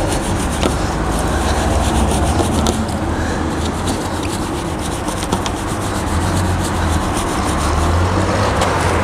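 A small Rimpaca wheel brush scrubbing inside the barrel of a wet, foamy alloy wheel behind the brake caliper: steady rubbing of soft bristles on metal, over a steady low rumble.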